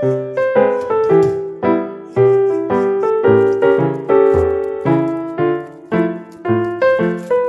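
Background piano music: a steady melody of struck notes that ring and fade, over low bass notes.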